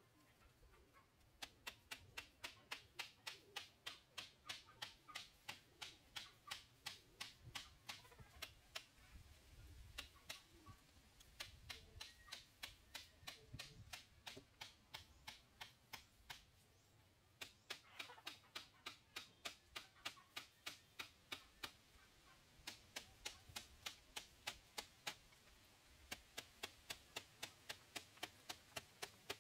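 Sharp, evenly spaced taps, about three a second, in long runs broken by a few short pauses.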